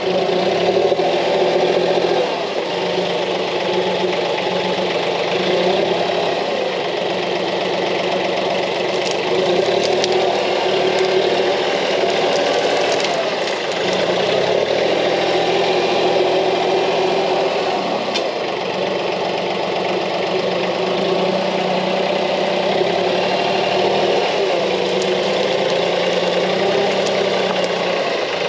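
Branson 2515h compact tractor's three-cylinder diesel engine running under load, its pitch rising and falling as the front loader and tooth-bar bucket work a small tree's root ball out of the ground.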